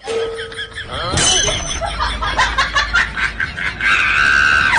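Men shouting and scuffling, with clattering knocks, ending in one long held scream.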